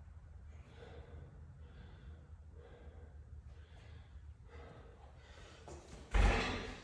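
A man breathing hard in repeated gasps, winded after a set of double-unders. About six seconds in there is a loud thump as he jumps up and grabs a steel pull-up bar.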